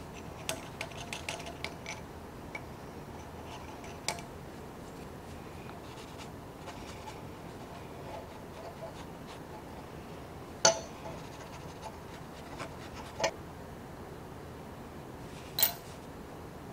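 Small steel revolver parts clicking and tapping against a steel workbench as they are handled and rubbed with steel wool: a quick run of light ticks at the start, then a few single sharp clicks, the loudest a little past the middle.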